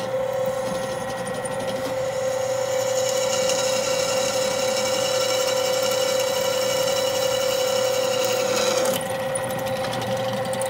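Drill press motor running with a steady hum while a twist bit bores through steel angle iron. The noise of the bit cutting the steel rides over the hum from about two seconds in and stops about nine seconds in.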